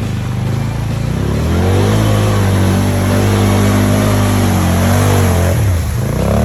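A vehicle engine picks up speed about a second and a half in and holds a steady higher pitch. It eases off around five and a half seconds, then revs briefly again near the end.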